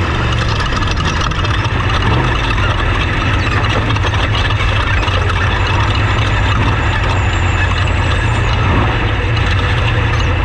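Off-road race truck engine running at a steady low drone, with dense rattling and rushing noise over it.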